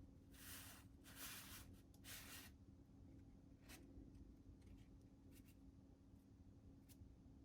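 Three faint, soft scraping strokes in quick succession, then a few light clicks.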